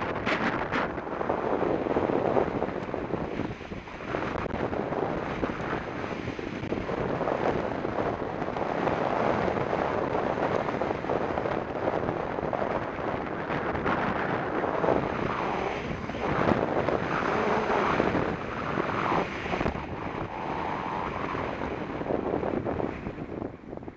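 Wind buffeting the microphone of a bike-mounted camera during a fast downhill run on an asphalt road, a rough, uneven rush that dies down just before the end.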